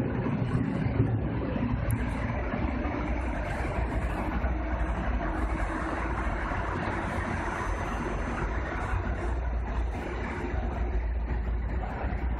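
Commuter electric train pulling away and running off down the line: a steady rumble of wheels and running gear with a low hum underneath. A thin, high steady whine comes in about two seconds in.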